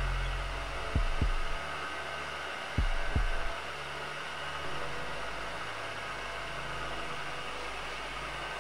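Bridgeport vertical mill running with an edge finder turning in the spindle: a steady low machine hum. Two pairs of short low thumps come in the first few seconds.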